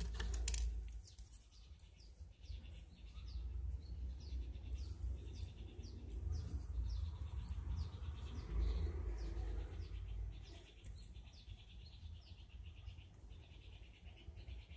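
A small bird chirping over and over, a steady series of short falling chirps about two a second. Under it is a low rumble of handling as plastic model-kit runners are picked up and moved.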